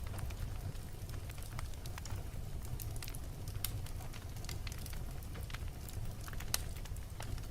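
Wood fire in a fireplace crackling and popping, with many irregular sharp snaps over a steady low rumble of the flames; the sharpest pop comes about six and a half seconds in.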